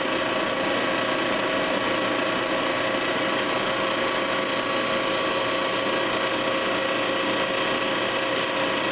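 Refrigerant recovery machine running steadily, an even mechanical machine noise with several steady held tones, as it pulls the last refrigerant out of an air conditioner that is nearly empty.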